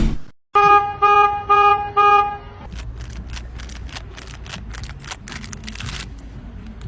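A horn honking four short times in quick, even succession, one steady pitch each time. It is followed by a steady low rumble with many scattered clicks and knocks.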